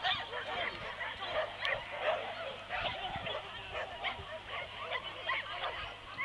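Several dogs barking and yipping, short calls overlapping one another with no real pause.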